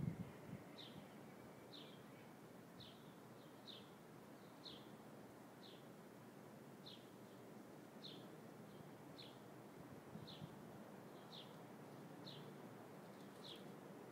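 A bird chirping, a short high chirp repeated about once a second, faint over a quiet outdoor background hiss. A low thump right at the start is the loudest moment.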